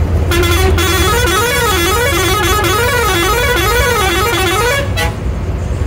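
Bus horn sounding a warbling tone that swings up and down in pitch about once every three-quarters of a second, starting a moment in and cutting off about five seconds in, over the low rumble of the engine and road.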